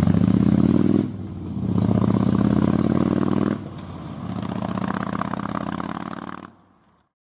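Motorcycle engine accelerating through the gears: the pitch climbs three times, dropping at shifts about one second and three and a half seconds in. It fades away near the end.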